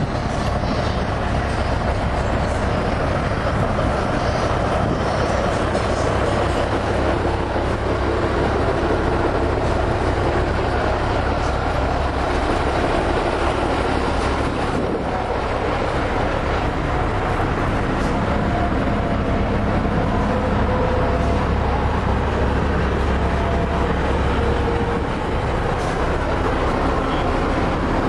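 Big-rig diesel truck engines idling, a steady low running noise.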